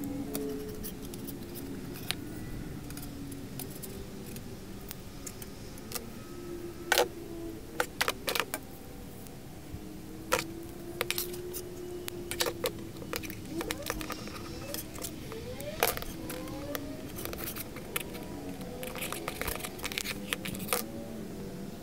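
Sharp metallic clicks and clacks as a hand tube bender and a metal brake line are handled and the line is bent into a loop. The clicks are irregular, with a cluster of louder clacks about a third of the way in and more near the end.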